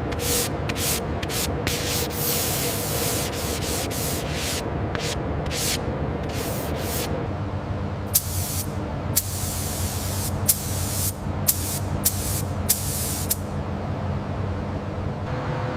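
Hiss of spraying air in many short bursts, stopping and starting, over a steady low hum.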